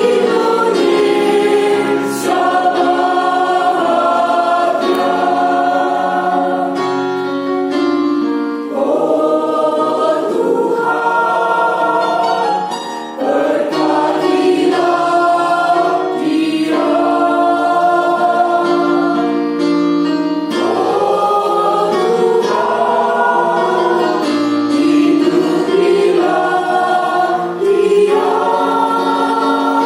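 A choir singing in several parts, holding sustained chords that move from one to the next.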